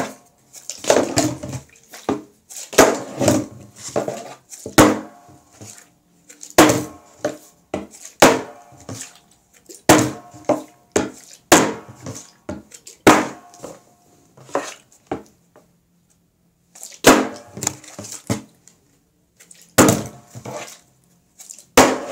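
Partly water-filled plastic bottle tossed again and again onto a wooden tabletop, knocking down and clattering over every second or two, with a short pause a little past the middle.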